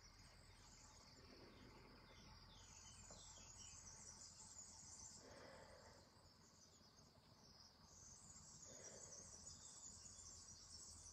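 Near silence with a faint, steady, high-pitched chorus of insects chirring in the background.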